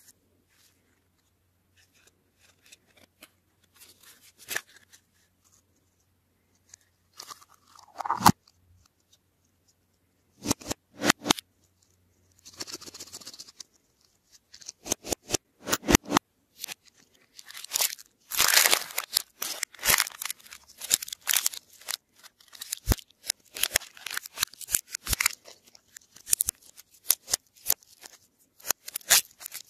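Handling of plastic surprise-egg capsules and candy wrappers: scattered clicks and taps, then dense crinkling and crackling through the second half as a foil wrapper is peeled off an egg.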